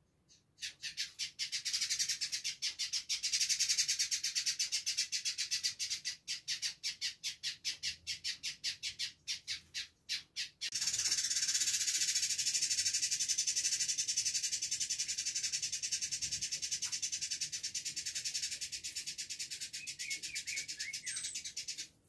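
Male village indigobird in full song: rapid, high repeated notes pulsing several times a second, which about halfway through run together into one unbroken dense chatter.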